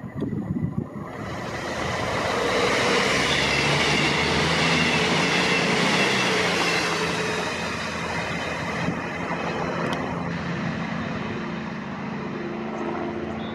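CrossCountry Voyager diesel multiple unit running through the station: a rush of wheels on rail and underfloor diesel engines that builds from about a second in, is loudest a few seconds later, then settles into a steady engine drone.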